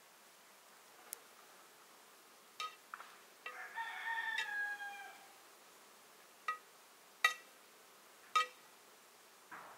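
A rooster crows once, a long call beginning about three and a half seconds in that falls slightly at the end. A metal ladle strikes the rim and sides of a metal pot several times as rice is scooped, in short, ringing clinks, the loudest of them near the end.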